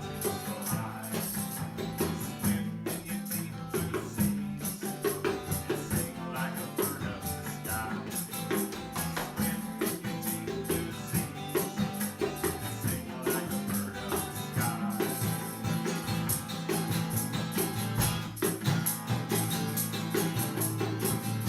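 Music with a steady beat: bright high percussion ticking in an even rhythm over bass notes that move from pitch to pitch.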